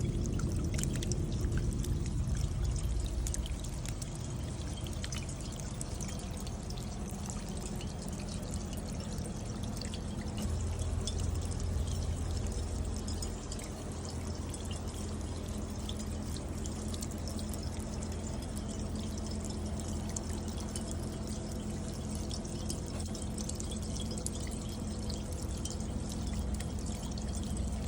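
Light rain running down a copper bucket rain chain: water pouring and dripping from cup to cup as a steady wash, dotted with many small drop taps.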